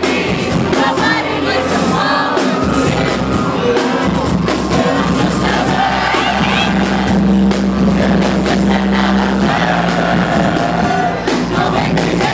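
Live concert music recorded from the audience: a loud R&B song with deep, long-held bass notes under singing, and the crowd audible throughout.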